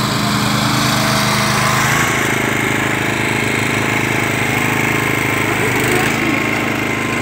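Toro walk-behind greens reel mower's small petrol engine running steadily. Its sound grows fuller about two seconds in.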